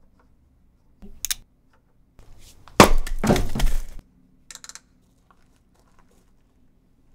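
A sudden crash of something breaking, about three seconds in, with a spill of clinks and clatter lasting about a second. A shorter sharp sound comes about a second in, and a brief clink comes about four and a half seconds in.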